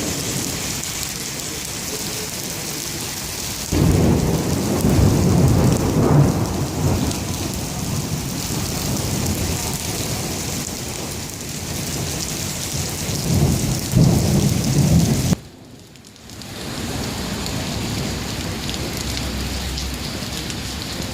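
Steady rain with two loud low rolls of thunder. The first starts suddenly about four seconds in and rumbles for about three seconds. The second comes near two-thirds of the way through and cuts off abruptly, then the rain comes back in after a brief quieter gap.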